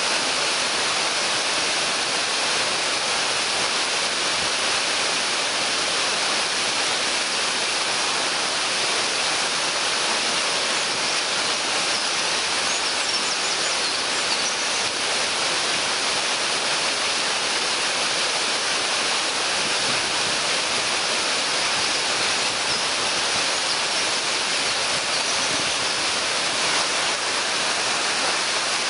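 Waterfall: water falling and splashing into its pool, a steady, even rush that does not change.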